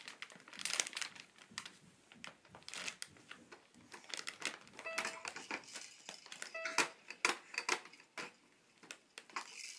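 Irregular light clicks, taps and rustles as a baby scoots on a quilt and handles a plastic activity walker toy, with two short flat tones about five and six and a half seconds in.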